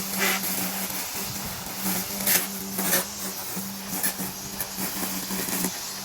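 Petrol lawn mower engine running at a steady pitch, with a few short rushes of noise and clicks over it, loudest about two and a half and three seconds in.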